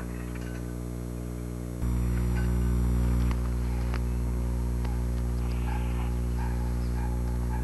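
Steady low electrical hum from an old VHS tape transfer, jumping louder about two seconds in. Faint short chirps sit above it.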